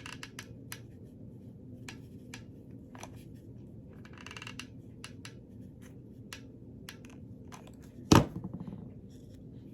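Small clicks and taps of small objects being handled and set down on a work table, with one sharp, louder knock a little after eight seconds in.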